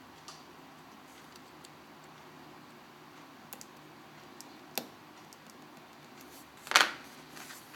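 Small sharp clicks of hand tools and small parts handled during iPhone 4S reassembly: a few faint ticks, then one louder click about seven seconds in.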